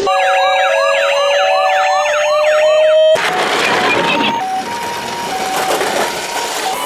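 Several toy emergency-vehicle sirens sounding together: an electronic wail repeating a few times a second over steady tones, cut off suddenly about three seconds in. After the cut comes a noisier stretch with faint, short alternating two-note siren tones.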